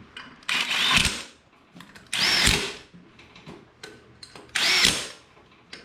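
Power impact gun spinning lug nuts onto a wheel in three short bursts, its motor whine rising and falling with each trigger pull.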